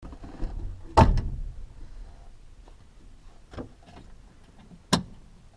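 Knocks and clicks from hands working in the cockpit of a Tecnam P92 Echo ultralight with the engine not running: a sharp knock about a second in, a fainter click past the middle, and another sharp click near the end.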